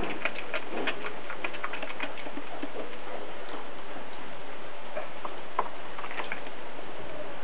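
Australian cattle dog chewing and tearing at a raw whole rooster: a run of crunching, crackling clicks, dense in the first couple of seconds and sparser after.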